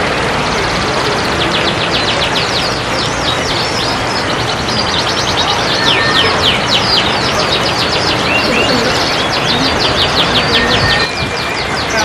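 Several caged canaries singing at once, fast chirps and trills running on without a break over a steady background noise.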